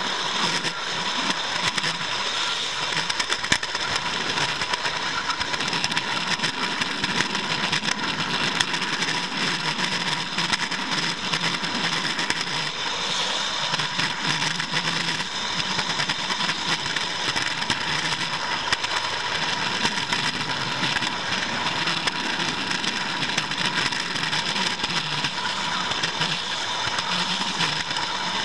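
Steady running noise of a model train heard from a camera car riding on the track: wheels rattling along the rails, with a constant thin whine.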